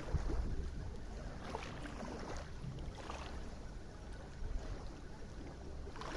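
Wind buffeting the microphone in a low, uneven rumble, with faint lapping of river water and small scattered rustles.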